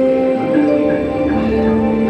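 Dark-ride soundtrack music with long held notes that shift in pitch every second or so.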